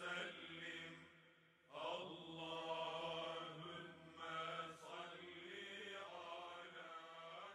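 Faint background vocal chant, sung in long held notes. It breaks off briefly about a second in, then resumes and stops near the end.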